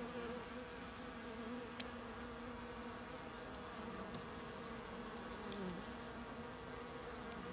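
Honeybees buzzing steadily around an open hive, a low even hum. A single sharp click sounds just under two seconds in.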